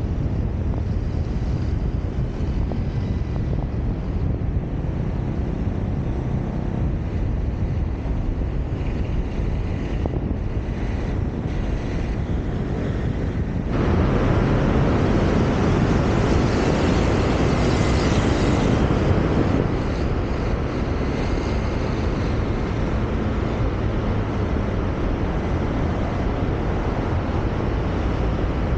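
Road noise from a car driving through city traffic, with wind rushing over the camera microphone. About halfway through, the rush turns suddenly louder for some six seconds, then settles back.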